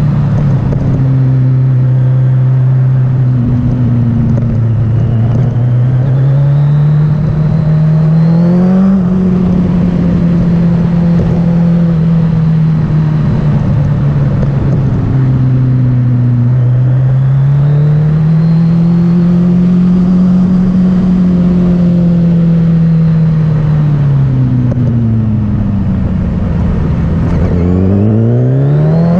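Kawasaki Z1000's inline-four engine running under way, its note holding steady, climbing twice as the bike speeds up, then sinking low as it slows and climbing sharply again near the end as it pulls away. A steady rush of wind and road noise runs under it.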